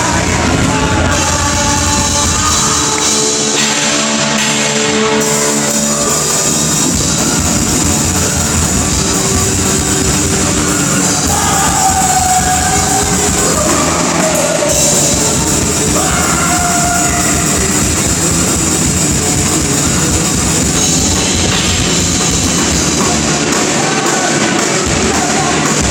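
Live rock band playing loudly, with a pounding drum kit, amplified instruments and some singing.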